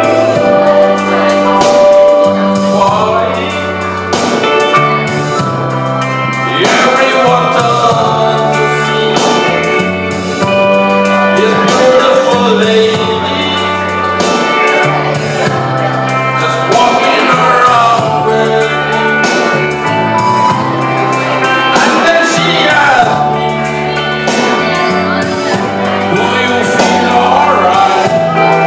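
A song: a singer's voice over an instrumental backing with a bass line that moves in held notes.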